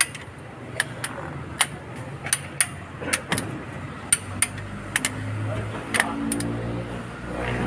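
Sharp metal clicks from a ratcheting wrench, about a dozen at uneven intervals, as it is worked on nuts among the rocker gear of a diesel engine's cylinder head. A low steady hum joins in about halfway through.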